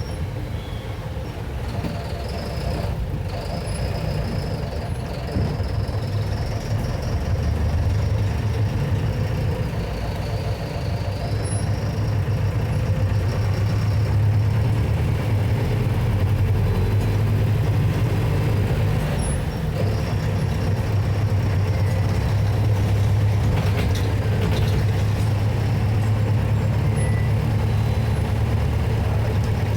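Mercedes-Benz OF-1721 BlueTec 6 bus's four-cylinder diesel engine running steadily with a deep drone, growing a little louder from about twelve seconds in. A thin high whine rides over it, stepping up and down in pitch.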